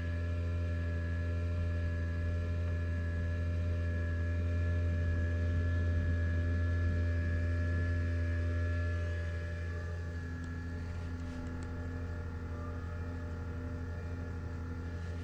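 Steady electric hum from an egg incubator's fan and heater: a low drone with several higher steady tones over it, a little quieter from about nine seconds in.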